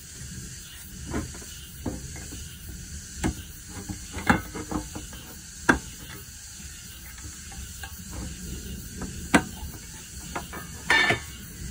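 Irregular metallic clicks and knocks as a metal tin of automotive grease is pried open by gloved hands, with a short cluster of clicks near the end, over a steady faint hiss.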